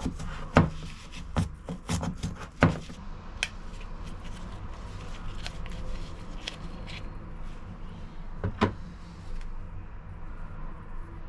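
Tools and parts being handled while prying a part open: a few sharp knocks and clicks in the first three seconds, lighter ticks after, and another knock near the end, over a steady low hum.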